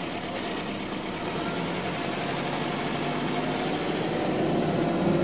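Car engine and road noise heard from inside the cabin while driving, steady and slowly growing louder.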